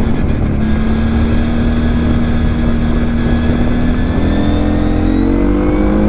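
Kawasaki KFX 700 V-Force quad's V-twin engine running at a steady pace, then accelerating about four seconds in with its pitch rising. Heavy wind rumble on the helmet microphone underneath.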